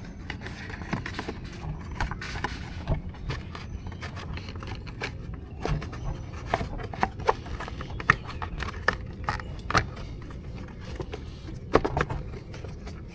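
Irregular clicks, knocks and scraping of a plastic ATV body cover being handled and worked back into place over its mounting holes.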